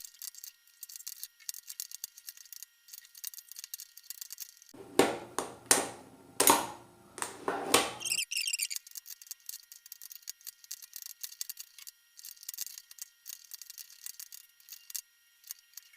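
Metal spoons clicking and scraping against a non-magnetic Cubelelo Drift speed cube as its layers are turned: a rapid, uneven run of small clicks, with a louder cluster of knocks about five to eight seconds in.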